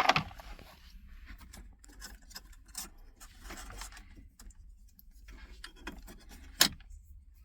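Scattered plastic clicks and the rustle of wiring looms and connectors being handled behind a car stereo head unit, with a sharp click at the start and another near the end.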